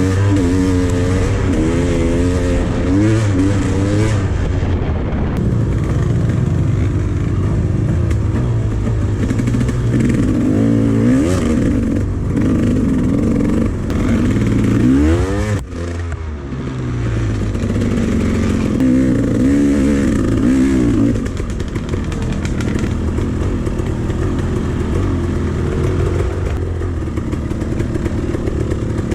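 Dirt bike engines revving, their pitch rising and falling over and over as the throttle is opened and closed, with one sharp dip and climb in pitch about halfway through.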